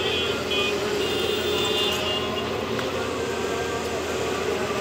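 Excavator engine running steadily, with a high-pitched whine over it during the first two seconds.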